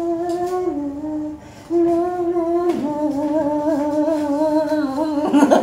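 A voice humming a slow tune in long held notes, with a short breath pause about a second and a half in.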